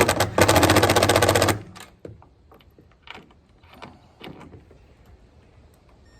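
Power driver hammering a bracket mounting screw tight with a fast rattle of impacts for about a second and a half, then a few light clicks and knocks as the work goes on.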